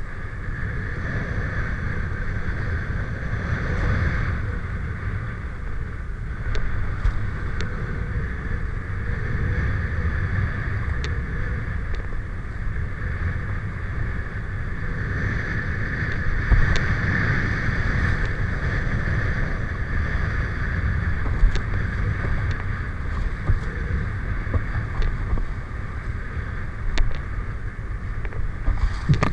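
Steady, continuous rumbling noise with a constant mid-pitched hum over it, with a few brief sharp ticks scattered through.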